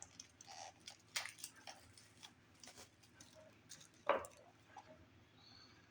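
Trading cards being handled and unwrapped: scattered faint crinkles and clicks of a plastic card wrapper, with one sharper crackle about four seconds in.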